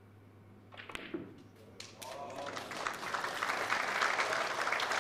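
Snooker balls clicking as a shot is played and a ball is potted, then the audience applauding, the applause growing louder toward the end.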